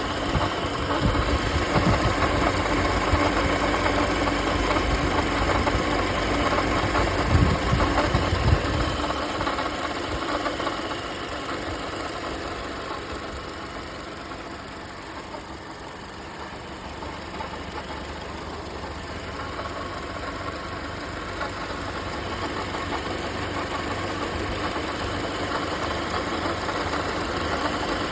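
Toyota Corolla engine running, with an unwanted extra noise in it that the owner is trying to catch. It is louder with heavy low rumbling and a few thumps for the first nine seconds or so, then drops and slowly builds again.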